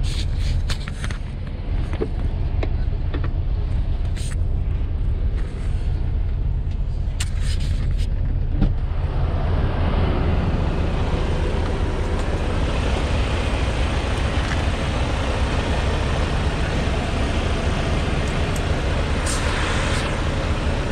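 Semi-truck diesel engine idling with a steady low rumble, scattered clicks and knocks of handling in the cab over it. About nine seconds in the cab door is open and the engine and outside noise grow louder, with a brief hiss near the end.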